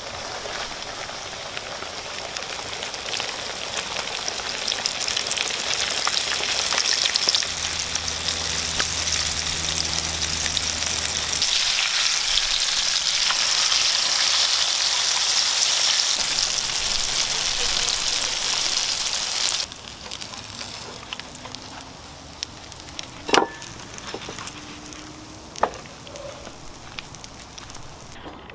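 A whole flour-coated largemouth bass deep-frying in hot oil in a pan: loud, steady sizzling that builds over the first several seconds. About two-thirds through it drops suddenly to a quieter sizzle, with a couple of sharp knocks near the end.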